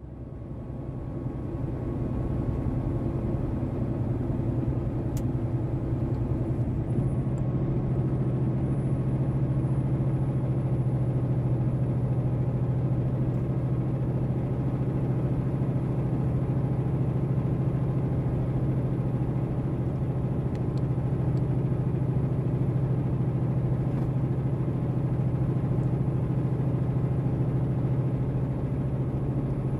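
Semi truck's diesel engine droning steadily at highway cruise, with road and tyre rumble, heard from inside the cab. It fades in over the first couple of seconds, then holds even.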